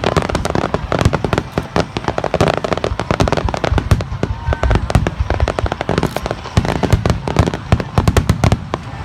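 Fireworks display: aerial shells bursting one after another in a dense run of deep booms and sharp crackling pops, with no pause.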